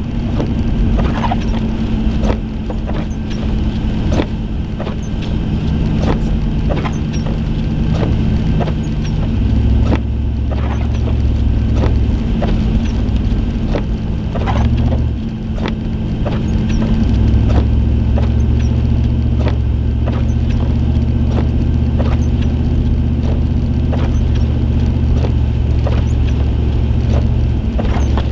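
Car driving on a snow-covered highway, heard from inside the cabin: a steady low rumble of engine and tyres that swells in places, with frequent sharp ticks and knocks at uneven intervals.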